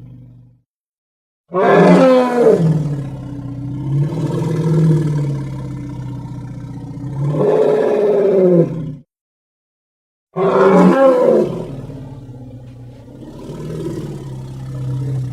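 Custom creature sound effect for a monstrous elephant beast: two long, pitched roars, each lasting several seconds with a wavering pitch, the first starting about a second and a half in and the second about ten seconds in, separated by a short silence.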